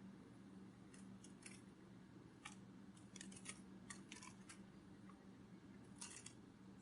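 Near silence: a low steady hum with faint, irregular small clicks, some in quick little clusters.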